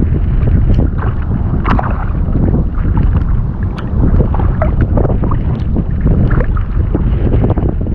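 Strong wind buffeting the microphone in a loud, unbroken low rumble, with many short ticks and crackles scattered through it.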